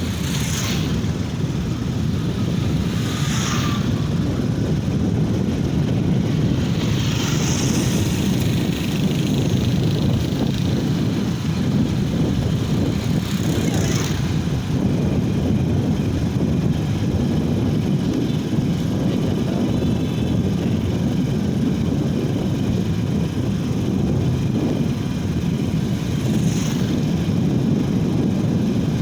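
Heavy diesel machinery engine running steadily at road-construction work, a continuous low drone. A few short hisses rise above it now and then.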